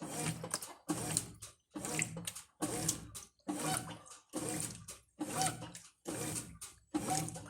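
Brastemp Ative 11 kg top-loading washing machine agitating a load: the agitator swishes the clothes and water back and forth in an even rhythm of about one stroke a second.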